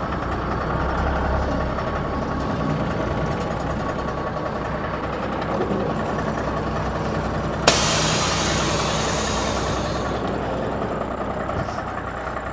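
Old tow truck's engine idling steadily. About eight seconds in, a sudden loud hiss of air from the truck's air brake system starts and fades away over about two seconds.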